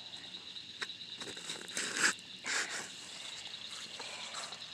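A steady chorus of night insects such as crickets, with a few short rustling noises about two seconds in.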